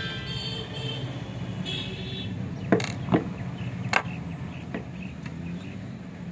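Four sharp clicks and knocks in the middle as tools and parts are handled against an open amplifier's metal chassis, over a steady low hum.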